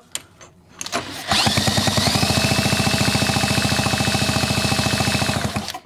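Simson two-stroke engine being spun up and kept turning for about four seconds, with a fast, even pulsing and a steady whine that rises briefly at the start and then holds. The engine turns so that the strobe lamp can show whether the ignition timing marks line up.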